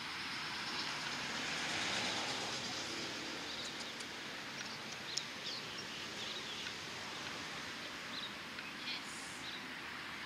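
Steady outdoor background noise, a hiss and distant rumble that swells about two seconds in, with faint scattered high chirps.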